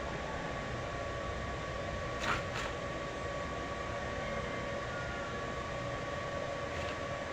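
Arc welding: a steady hiss with a constant hum under it, broken by two short sharp sounds a little over two seconds in.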